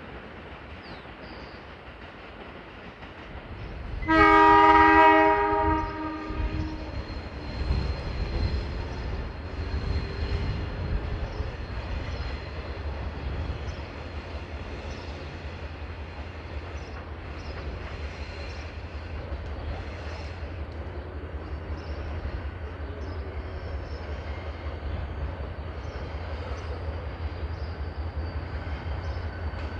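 Diesel locomotive D-2351 sounds one horn blast of about two seconds, a loud chord of several tones, about four seconds in. The locomotive and its freight train then keep running by with a steady low rumble.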